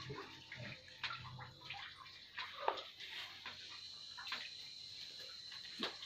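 Faint splashing and sloshing of water in a muddy dug well, in short irregular bursts, over a steady high-pitched whine.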